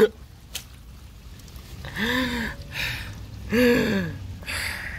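A person's wordless voice making short breathy cries, each rising and falling in pitch, about a second and a half apart, after a sharp knock at the very start.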